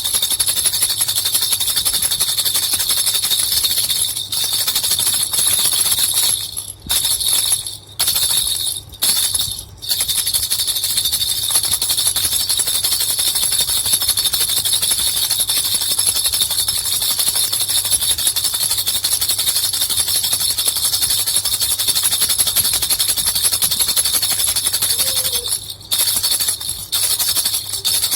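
Baby rattle with two small bells shaken steadily, a dense continuous jingling, with a few brief pauses in the shaking about seven to ten seconds in and again near the end.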